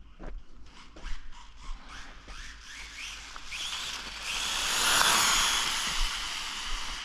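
Brushless motor of a Rlaarlo Croboll 1/14-scale RC car on a 2S battery: after a run of quick ticks, a whine rises in pitch, is loudest about five seconds in, then fades as the car passes. The owner finds it running slow and suspects the ESC's tuning.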